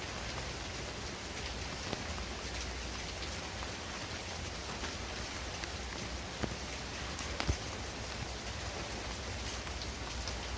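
Steady rain falling on outdoor surfaces, with a few sharp taps standing out from the patter, the clearest about six and a half and seven and a half seconds in.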